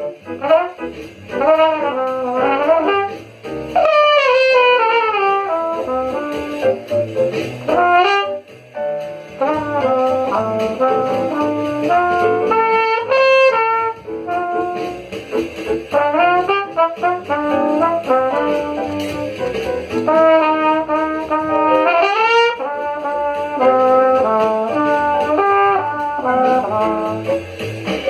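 Jazz: a brass horn plays fast melodic runs in phrases, with brief breaks between phrases.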